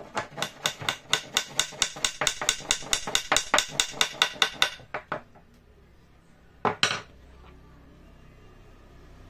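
Hammer tapping a wooden dowel into a hole in a rubberwood rail: a quick, even run of light strikes, about five a second, for four to five seconds, then a few slower taps. One louder knock comes about seven seconds in.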